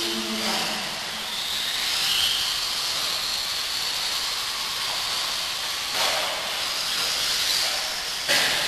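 Electric radio-controlled off-road buggies running on a dirt track: a steady hiss of motors and tyres with a high motor whine that rises and falls as they accelerate and brake. A sharp knock comes near the end.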